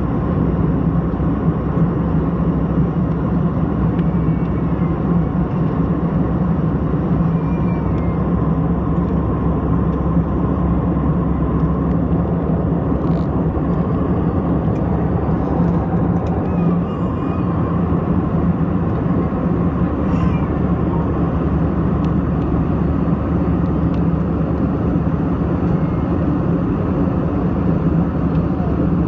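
Steady, loud airliner cabin noise in flight: the constant rumble and rush of engines and airflow, with a few faint clicks about halfway through.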